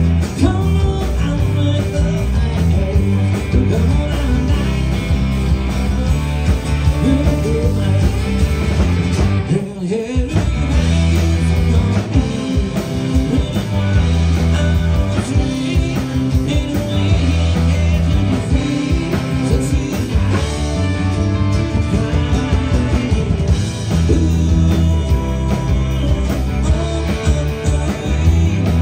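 Live rock band playing an amplified song: electric guitars, bass guitar and drum kit, with a male lead vocal. The full band drops out for a moment about ten seconds in, then comes back in.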